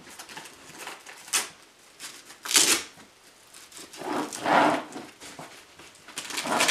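Velcro straps being pulled and pressed shut around a carrier's handle: a few short raspy rips with fabric rustling in between.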